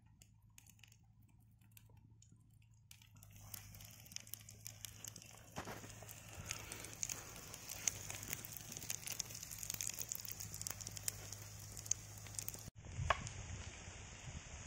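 Egg paniyarams frying in oil in a cast-iron paniyaram pan over a wood fire: faint at first, then fine sizzling and crackling from about three seconds in, breaking off sharply for a moment near the end.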